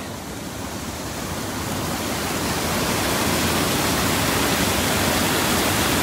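Whitewater rushing over rocky creek cascades below a waterfall: a steady rushing noise that grows gradually louder over the first few seconds, then holds.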